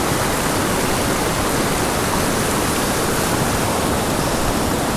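Small mountain river rushing steadily: a loud, even wash of moving water.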